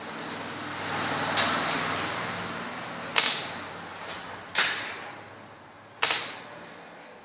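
Sharp clicks of makruk moves being played, three of them about a second and a half apart, each with a short ring, after a rising swish about a second in.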